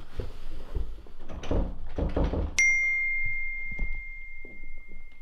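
A few soft thumps, then about two and a half seconds in a single bright bell-like ding that rings on at one steady pitch and cuts off abruptly.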